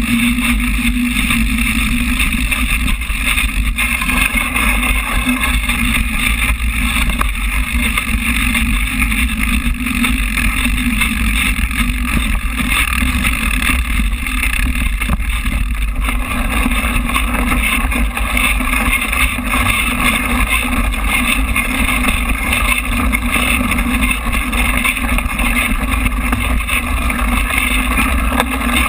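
Steady, loud rumble and rattle of a bike-mounted action camera riding a dirt trail, the tyres running over the ground and the mount shaking, with wind on the microphone.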